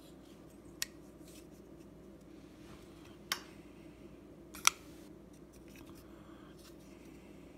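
Three sharp metallic clicks, the loudest just under five seconds in, with a few fainter ticks between: the blade and liner lock of a Fura folding knife being worked open and shut by hand.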